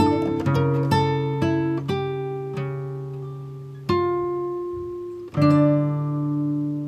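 Background music of slow, gently plucked acoustic guitar: single notes ringing out and fading, with a fuller chord struck about five and a half seconds in.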